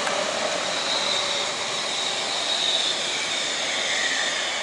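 A tarp-loaded Mitsubishi Colt L300 pickup and a truck behind it drive past, engines running steadily amid road noise. A high whine slowly falls in pitch.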